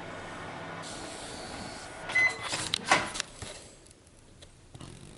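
Microwave oven running with a steady hum that stops about two seconds in. A single short beep follows, then a few clicks and knocks.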